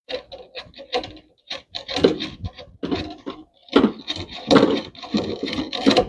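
Sandpaper being rubbed by hand in short, irregular back-and-forth strokes.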